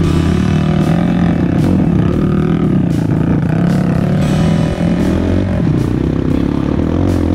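Trail dirt bike engine running at varying revs while riding up a forest trail, mixed with background music.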